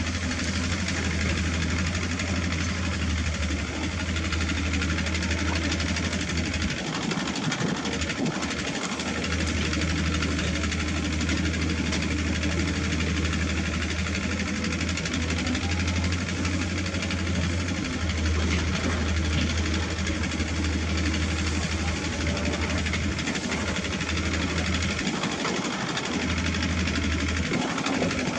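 Diesel engines of heavy earthmoving machinery running with a steady low drone over a haze of mechanical noise. The drone briefly falls away about seven seconds in and twice near the end.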